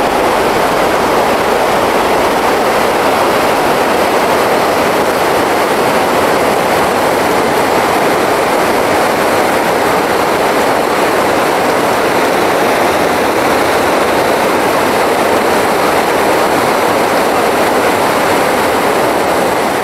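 Steady rush of fast river water running over rocks, even and unbroken.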